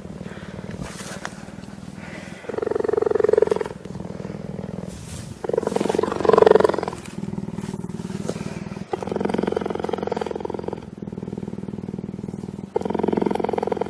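Cheetah purring in long rhythmic strokes of a second or two, swelling every few seconds with the breath; a sign of contentment while being stroked.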